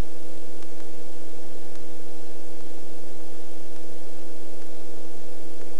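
Light helicopter in flight: a steady drone of engine and rotor with a constant low hum running through it.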